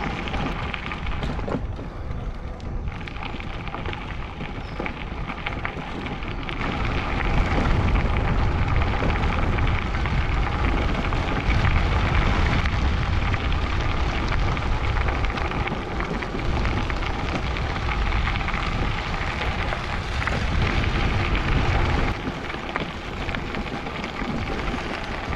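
Wind rumbling on the camera microphone of a moving e-bike, with the tyres crackling over a crushed-gravel trail. It gets louder through the middle stretch.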